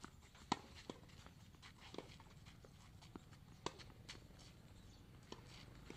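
Tennis rally: rackets striking the ball and the ball bouncing on a clay court, heard as a series of sharp pops. The loudest comes about half a second in and another strong one about three and a half seconds in.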